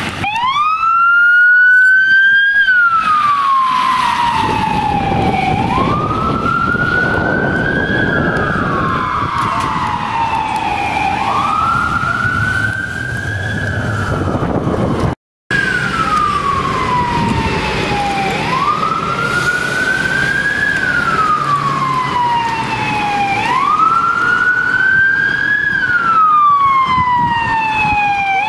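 Police siren on a wail: each cycle the pitch climbs quickly, then falls more slowly, repeating about every five and a half seconds, with road noise beneath. About halfway through the sound cuts out for a moment, then the wail comes back in mid-fall.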